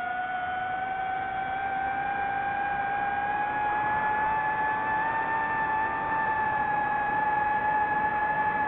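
DJI FPV quadcopter's motors and propellers whining in flight: one pitched tone with overtones that climbs slowly in pitch as the throttle changes.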